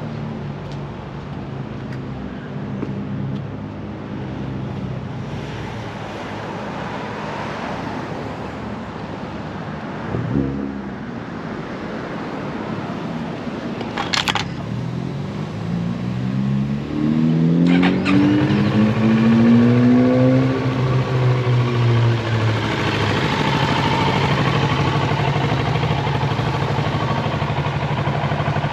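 Kawasaki Z650's 649 cc parallel-twin engine running. Past the middle it is revved, its pitch climbing over a few seconds, then it drops back to a steady idle. Two sharp clicks come shortly before and during the rev.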